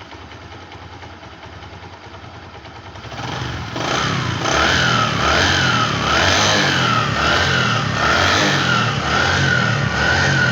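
Bajaj Platina ES motorcycle's single-cylinder four-stroke engine idling, then from about three seconds in revved up and down repeatedly, its pitch rising and falling over and over. It is running on a newly fitted genuine Bajaj oil pump that replaces one with a broken gear, to show that the engine noise is cured.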